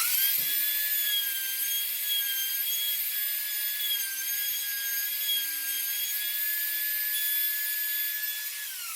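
Trim router switched on and spinning up to a high, steady whine while cutting a latch recess in timber; the pitch wavers slightly as the bit cuts, and the motor winds down with a falling whine near the end.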